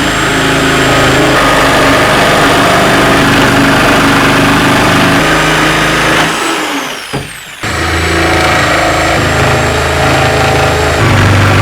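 Electric router running at full speed and cutting along the edge of a wooden floorboard, its motor whining high. It winds down about six seconds in and starts up again about a second later.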